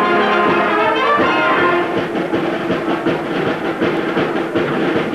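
Orchestra playing: a held brass chord gives way to quick falling runs, then a fast, even rhythmic figure over a steady held note.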